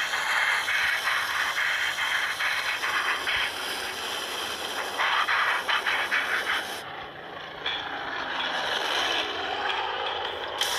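Film-soundtrack aircraft engines in a WWII air battle, heard through a television speaker: a harsh, rattling engine noise that dips about two-thirds of the way in, then a sweeping engine pitch near the end.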